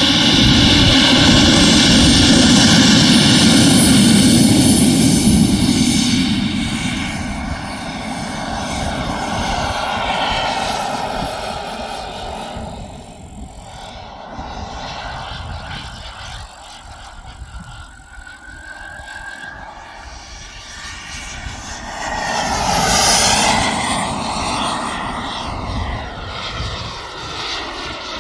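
Turbine engine of a Mephisto radio-controlled model jet, heard as the plane passes: loud at first and fading over several seconds, then swelling again in a second pass about 23 seconds in. Its high whine slides down in pitch as it goes by.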